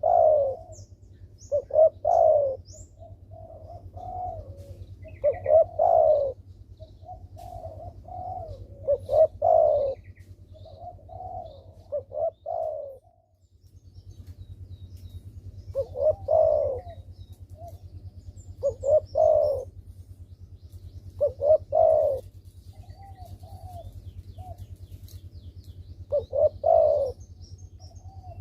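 A derkuku dove cooing in repeated phrases of a few short notes, about one phrase every two to three seconds, with a pause about halfway through. It is a vigorously calling bird used as a lure call to get quiet derkuku to sing. Faint chirps of small birds sound in the background.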